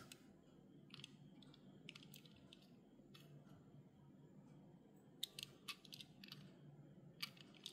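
Near silence, with faint, scattered clicks and taps of fingers handling a small die-cast metal model car, a little cluster of them about five to six seconds in.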